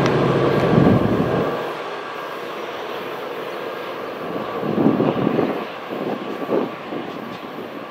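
NJ Transit commuter train running past. Its steady low engine drone drops away about a second and a half in, leaving an uneven rushing rumble from the moving train that swells briefly near the middle.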